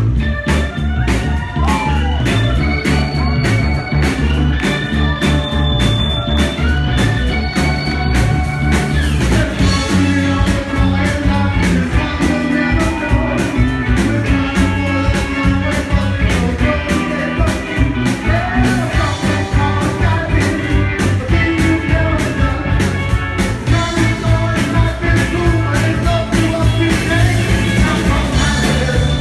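Live rock band playing loud through the club PA: electric guitars, bass and drum kit with a steady driving beat, and a man singing at points.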